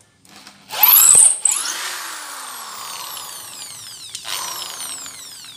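Motor of an NRT Pro 500HD corded electric drill triggered to full speed with its bit in a wooden plank, then released and winding down with a falling whine. About four seconds in it is briefly run again and coasts down once more.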